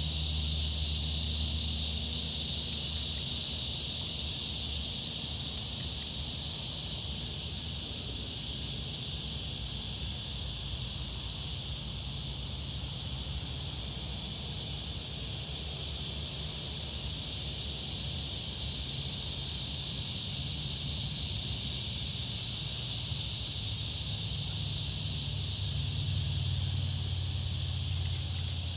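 Steady, high-pitched insect chorus from the surrounding bush, with a low hum underneath that is stronger at the start and near the end.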